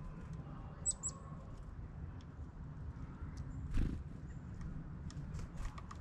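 Two short, very high-pitched calls from a small songbird about a second in, while birds come to a hand of seed. Scattered light clicks and rustles sound throughout, and a single thump just before the four-second mark is the loudest sound.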